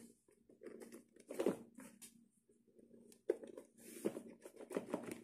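Hands handling and unpacking a cheap tablet's packaging: irregular rustling and small clicks of plastic and cardboard, with a sharp click about three seconds in.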